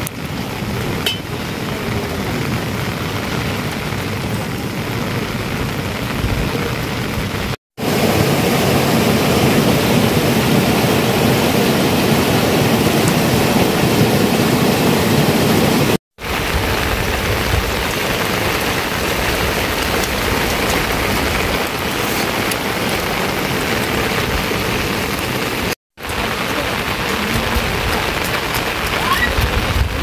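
Heavy rain falling steadily, broken by three brief silent gaps where separate recordings are cut together.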